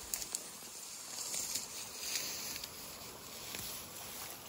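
Shallow water trickling through a woven bamboo fish trap set in a small paddy-field channel, a soft steady hiss with a few faint ticks near the start.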